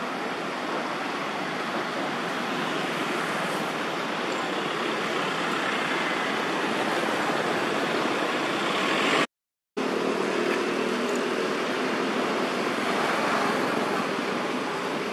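Steady outdoor background noise, an even rushing haze with no distinct events, that cuts out completely for about half a second roughly nine seconds in.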